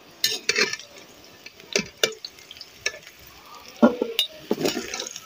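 A metal spatula scraping and clinking against a large metal wok and a steel bowl as fried yam pieces are scooped out. The sound is a string of irregular sharp clinks and short scrapes.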